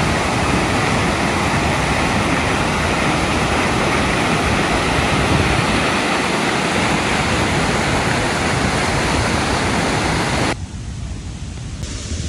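Water rushing in a fast-flowing forest stream, a loud steady rush that drops away suddenly near the end.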